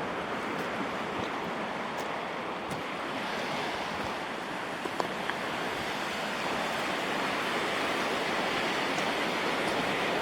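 Steady rushing of ocean surf that swells slightly in the second half, with a few faint clicks.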